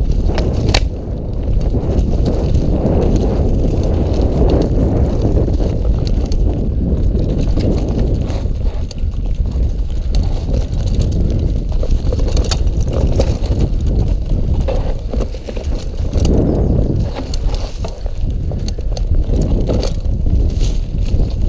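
Mountain bike riding fast over a rough dirt trail: a steady rumble of wind and tyre noise on the camera's microphone, with frequent rattles and knocks from the bike over bumps.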